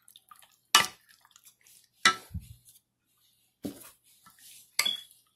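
Wooden spoon knocking against a baking dish four times, about a second apart, as it works a thick marinade into raw chicken thighs.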